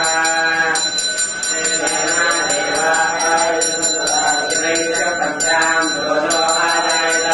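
Temple bell rung rapidly and continuously, about five or six ringing strokes a second, during the water offering to the deity, with voices chanting beneath it.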